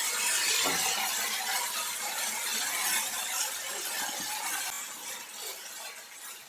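Food sizzling in a hot pan, the hiss slowly dying down, with a few faint knocks.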